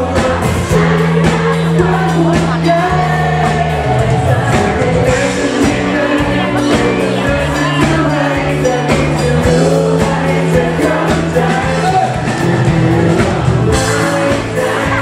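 Live pop-rock band with lead vocals, amplified: a steady drum beat, held bass notes and singing.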